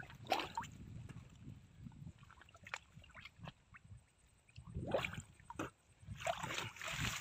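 Water sloshing and splashing in small irregular bursts, with drips and gurgles, as a person moves in the water. The splashing grows louder about five seconds in and again near the end.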